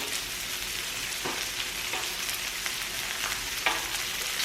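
Pork belly sizzling on a tabletop grill: a steady frying hiss, with a few faint short taps.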